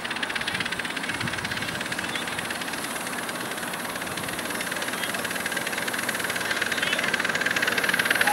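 7¼ inch gauge model steam locomotive of the GWR King class running, its exhaust beats coming fast and evenly and growing steadily louder as it approaches.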